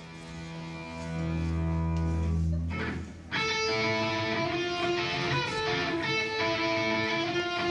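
Amplified electric guitars and bass guitar played live: a low chord held and ringing for nearly three seconds, a brief break, then a riff of repeatedly struck chords.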